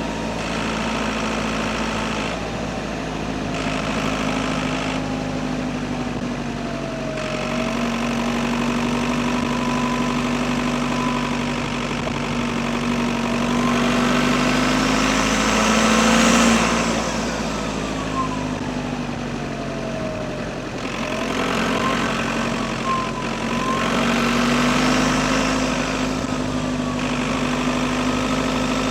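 Audi A6 4F's 2.0 TDI Pumpe-Düse four-cylinder diesel engine running, with the turbocharger's thin whistle gliding up and down in pitch. About halfway through the engine and turbo swell louder, with a rising whoosh, then settle back.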